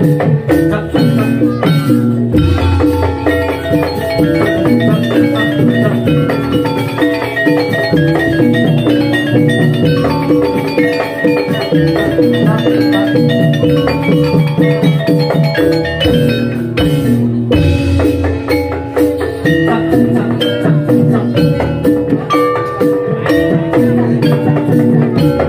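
Javanese gamelan-style music for a jathilan dance: metallophones ring a fast, steadily repeating pattern of short notes over drums.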